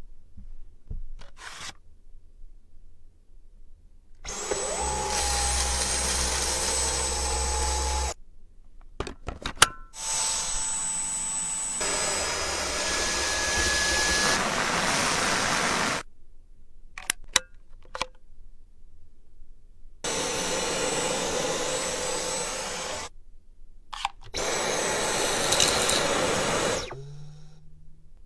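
Vacuum cleaner motor running in four stretches of a few seconds each, with a high whine over the noise. Each stretch starts and stops abruptly, and there are short clicks and knocks in between.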